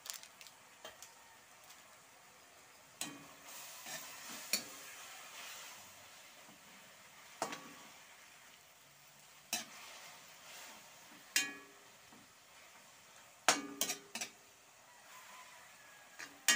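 Metal ladle scraping and clinking against a metal wok as leafy sweet potato tops are stir-fried, a sharp clink every couple of seconds, with a faint sizzle between the strokes.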